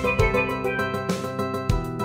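Instrumental background music: a melody of short pitched notes over a drum beat.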